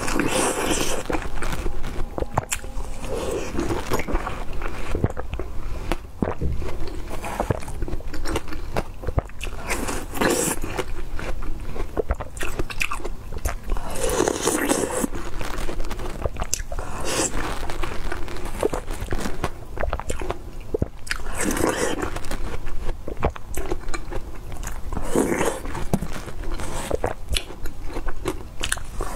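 Close-miked eating sounds: a person biting into and chewing soft food, with many small wet mouth clicks and louder chewing bursts every few seconds.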